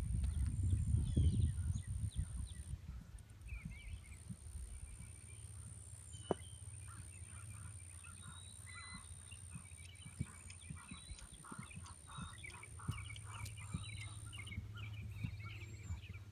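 Outdoor ambience of small birds chirping and twittering, with wind buffeting the microphone for the first two seconds or so and a steady high-pitched whine that stops a couple of seconds before the end.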